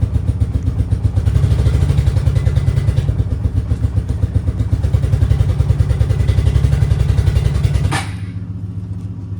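2004 Suzuki King Quad four-wheeler engine idling with a fast, even pulse after a cold start. About eight seconds in, a sharp click comes and the sound drops to a quieter, smoother hum.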